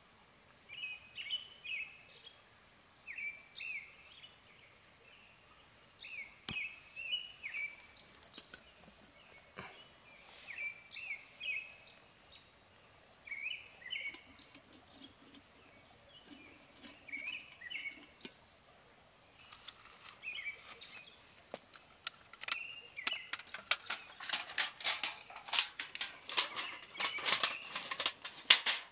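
A songbird singing short chirping phrases, repeated every second or two, over a faint outdoor background. In the last several seconds a loud run of rapid crackling clicks covers the song.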